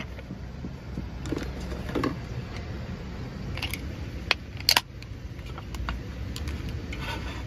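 A few light clicks and knocks from a plastic cooler's push-button latch and lid, then an aluminium beer can's pull tab cracks open with a sharp snap a little over halfway through. A low steady rumble runs underneath.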